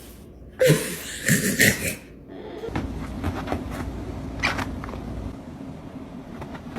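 A pet animal's harsh, noisy cries in three quick bursts about a second in, followed by a few faint clicks over a low hum.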